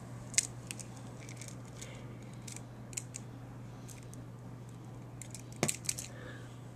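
Scattered small sharp clicks and taps of a small plastic cap being handled in a child's fingers, with a short cluster of clicks near the end, over a steady low hum.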